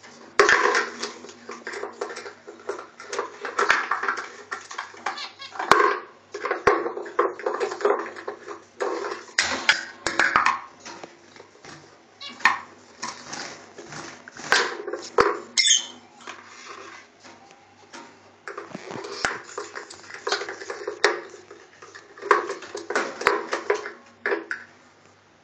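Rosy-faced lovebird chattering and squawking in repeated bursts of a second or two, with sharp clicks scattered between them.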